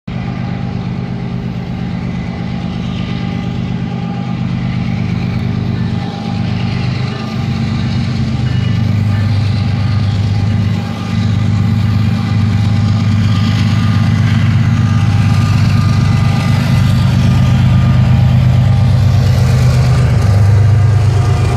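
Canadian Pacific diesel-electric locomotive 8845 approaching and passing, its engine running with a steady low drone that grows louder.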